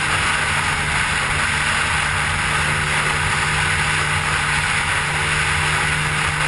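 Suzuki Burgman scooter running steadily through a Roncar RS5 aftermarket exhaust, a low, even engine note under a constant hiss, with no revving.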